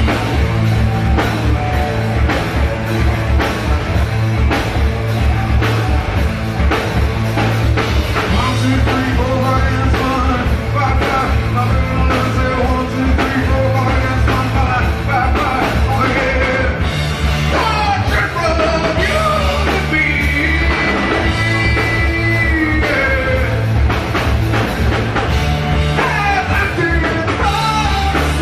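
Live rock band playing loudly: guitars and drum kit with a steady beat, and a man singing over them.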